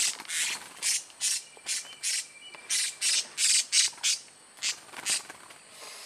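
Blue-crowned hanging parrot (serindit), just caught, giving a rapid run of short, shrill, harsh squawks, roughly two a second.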